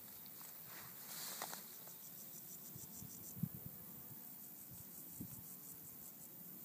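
Insects stridulating in meadow grass: a rapid, even train of high-pitched ticks that starts about a second in and comes back in spells. A few low thumps underneath, the loudest about halfway through.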